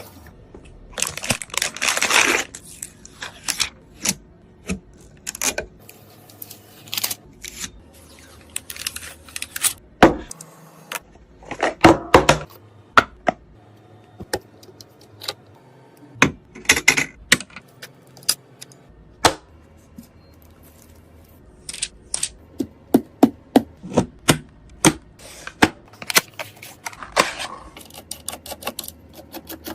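Hands handling computer parts during a PC build: irregular clicks, knocks and small rattles, broken by a few short rustling bursts.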